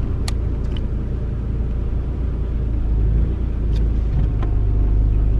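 Nissan R31 Skyline's RB30 straight-six running as the car pulls away, a steady low rumble that grows a little louder midway, with a few light clicks.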